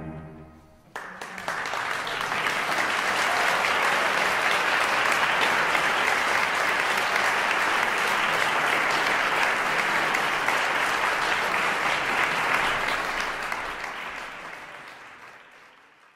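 The last bowed chord of a viola and cello duo rings out and dies away in the first second. Then an audience applauds: the clapping starts about a second in, holds steady, and fades out near the end.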